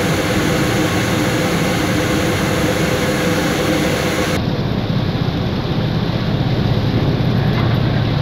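Steady drone of a boat's engine under rushing wind and water noise. About four seconds in, the hiss suddenly thins while the low drone carries on.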